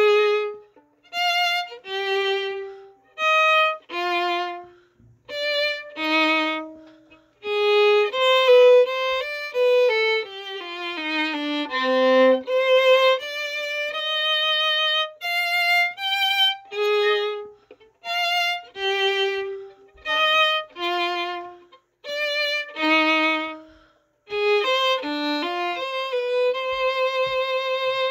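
Solo violin bowed in a rondo theme: separate notes and short phrases with brief gaps, a quicker falling run in the middle, and a long held note with vibrato to close.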